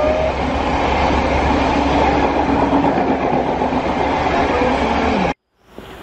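GWR High Speed Train's Mark 3 coaches rushing past at speed: loud rolling rumble with a clatter of wheels over the rail joints, and a steady hum that drops in pitch just before the sound cuts off suddenly about five seconds in, leaving a faint distant rumble.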